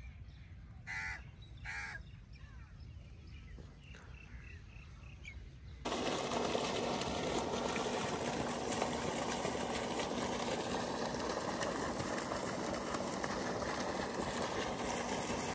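Two short crow caws about a second in, with faint small bird chirps after them. About six seconds in, a sudden cut to the loud, steady rush of water gushing from a pipe and splashing into a field channel.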